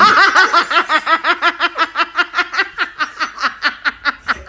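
A person laughing hard in a fast, even run of short high-pitched 'ha' pulses, about seven a second.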